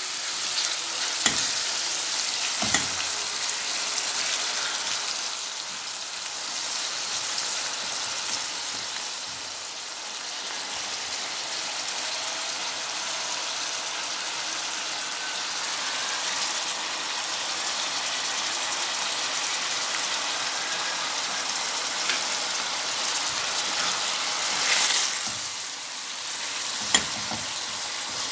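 Minced meat and chopped onion sizzling in hot fat in a stainless steel frying pan, stirred and turned with a silicone spatula. A few sharp knocks of the spatula against the pan come twice near the start and once near the end, and the sizzle swells briefly a few seconds before the end.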